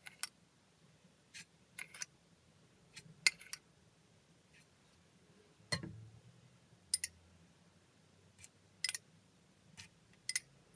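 A metal teaspoon clinking and tapping against small glass bowls and a glass tumbler while spooning out sugar and then water: a dozen or more sharp, separate clinks, with a duller knock about halfway through.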